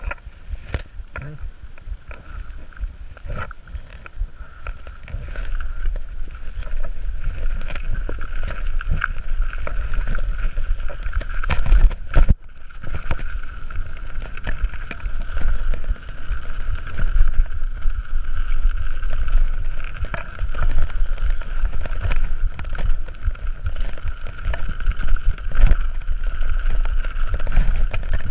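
Mountain bike descending a dirt forest trail at speed, heard from a helmet camera: heavy wind rumble on the microphone, tyres on dirt, and the bike knocking and rattling over bumps, with a steady high buzz. The sound cuts out briefly about twelve seconds in.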